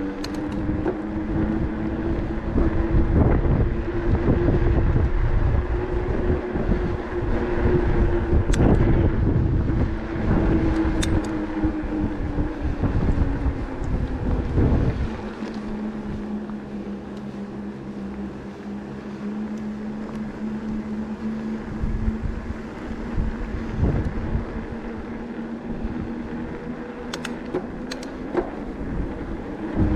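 Electric bike motor whining steadily while riding, with wind rumbling on the microphone. About halfway through, the whine drops lower in pitch and the wind rumble eases.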